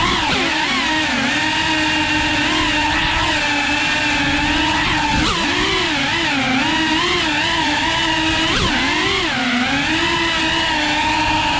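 FPV quadcopter's electric motors and propellers whining, the pitch rising and falling with the throttle, with sharp swooping dips about five and eight and a half seconds in.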